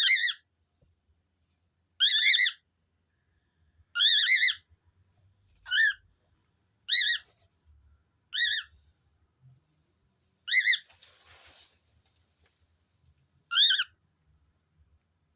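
Cockatiel calling: eight loud, high-pitched, wavering whistled calls, each about half a second long and spaced one to three seconds apart. A faint hiss follows the seventh call.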